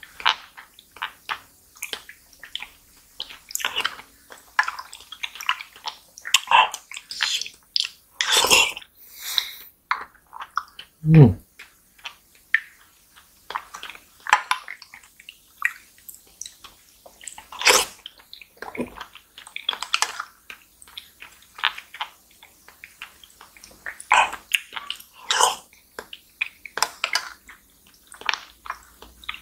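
Close-miked wet eating sounds of soft fruit jelly and pudding: irregular slurps, squishes and lip smacks, with one louder low sound about eleven seconds in.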